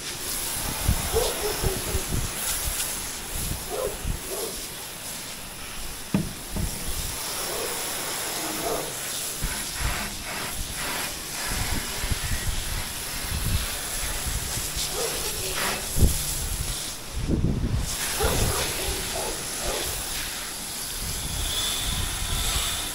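Garden hose spray nozzle hissing steadily as water is sprayed over an RV's rubber roof, rinsing it, with wind rumbling on the microphone.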